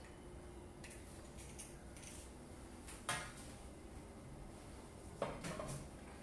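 Faint kitchen clatter of dishes and utensils: a few light clicks, then a sharp clink about three seconds in and another clatter about five seconds in.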